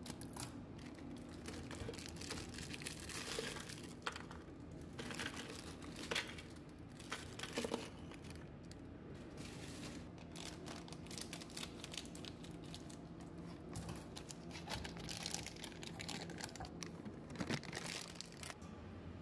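Crinkly plastic biscuit wrappers rustling and tearing as packets are opened, with scattered sharp clicks and knocks of biscuits and a chocolate bar being handled into bowls.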